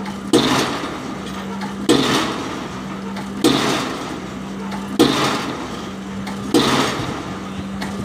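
Diesel pile hammer driving a PHC concrete spun pile: five heavy blows, one about every second and a half, each a sharp bang, over a steady hum.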